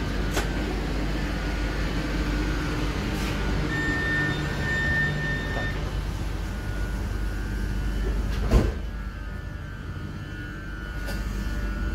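Steady low hum inside a stopped train carriage, with a steady electronic beep held for about two seconds about four seconds in, and a single sharp thump about eight and a half seconds in, after which the hum is quieter.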